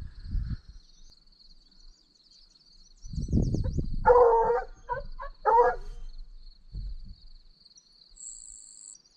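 A hound barking a few short times, just after a low thump, over a steady high buzz of insects. Two long high electronic beeps sound near the end.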